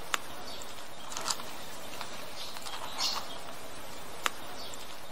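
A cat crunching dry kibble: short crunches every second or so, with two sharp clicks, one just after the start and one near the end.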